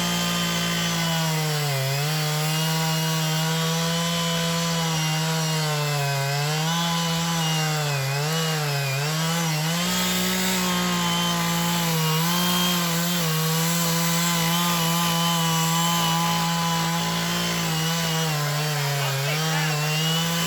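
Two-stroke chainsaw cutting into a tree trunk at high revs, its pitch sagging briefly several times as the chain loads in the wood. Right at the end the throttle is released and it drops to a lower idle.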